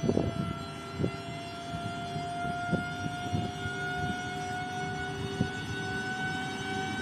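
WAG-12B twin-section electric locomotive pulling away with a freight train, its traction motors and inverters giving a whine of several tones that slowly rise in pitch as it gathers speed. Over a rumble from the wheels there are a few scattered knocks.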